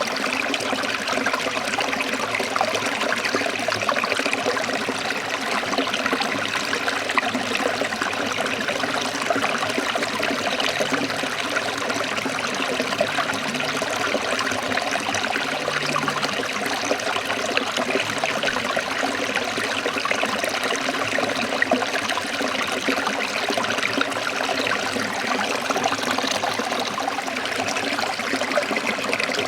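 Water of a forest stream running and splashing over rocks in a steady, unbroken rush.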